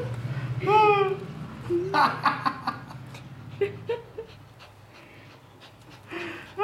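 Small shaggy dog panting quickly, with a short falling whine about a second in and a few brief whimpers later on.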